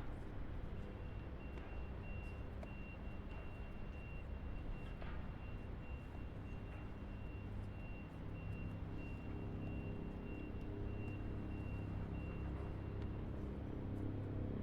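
Vehicle driving on a highway: a steady low road and engine rumble, getting slightly louder in the second half. A high-pitched electronic beep repeats at an even pace from about a second in until near the end.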